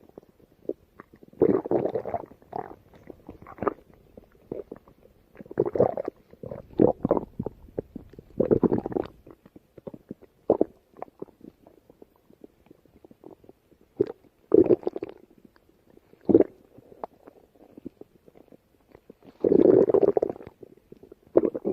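Stomach growls: irregular gurgling rumbles that come in bursts between quieter stretches, the longest and loudest near the end.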